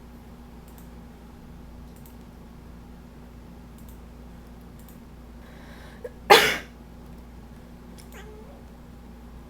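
A person sneezes once, sharp and loud, about six seconds in, after a short breathy intake. About two seconds later a cat gives a faint short meow.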